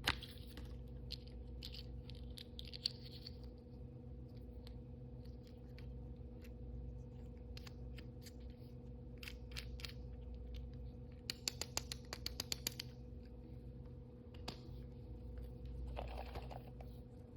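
Blind-bag toys and their plastic packaging handled close to the microphone: scattered light clicks and taps, a quick run of about eight clicks past the middle, and a short rustle near the end. A steady low electrical hum runs underneath.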